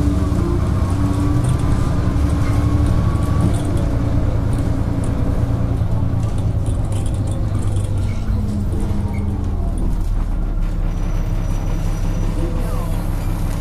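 Diesel engine of an Ikarus-bodied DAF single-decker bus heard from inside the passenger saloon, running on the move with a steady low drone whose pitch shifts now and then.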